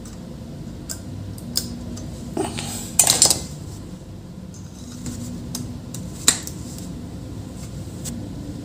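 Light metallic clicks and clinks of steel tweezers and a coin-cell CMOS battery against its holder as the battery is reseated on a laptop motherboard. The loudest is a short clattering cluster about three seconds in, with a single sharp click a little after six seconds.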